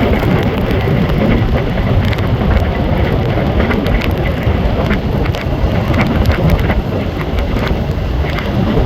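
Passenger train running at speed: a steady, loud rumble of wheels on rail, with scattered sharp clicks and rattles.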